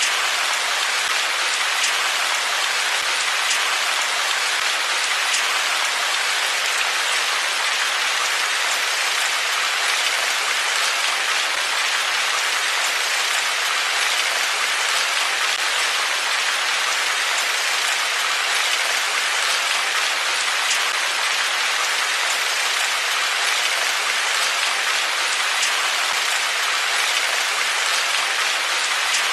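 Steady rain falling on hard surfaces, an even hiss with faint scattered drop ticks.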